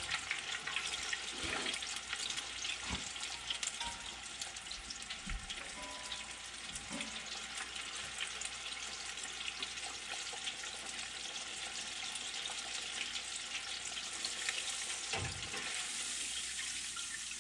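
Crappie fillets breaded in seasoned flour and cornmeal frying in hot oil: a steady sizzle, with a few light knocks.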